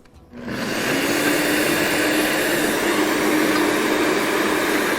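Electric blender switched on to blend a sauce. The motor starts about a third of a second in and runs steadily with a constant hum.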